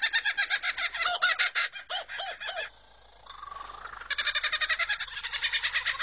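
Superb lyrebird singing a rapid run of mimicked bird calls. Fast repeated notes, about ten a second, break off a little under three seconds in; a softer, quieter warbling stretch follows, and the fast notes resume about a second later.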